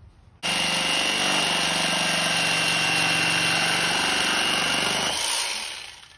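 Old corded jigsaw switched on about half a second in, its blade cutting through a weathered, rotted wooden rail with a steady buzzing whine. It runs at one level for about five seconds, then winds down near the end.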